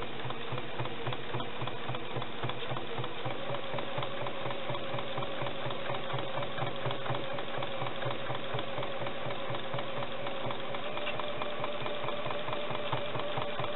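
Domestic sewing machine running steadily, sewing a straight stitch through a quilt sandwich: a rapid, even run of needle strokes over the motor's hum, which rises slightly in pitch about four seconds in.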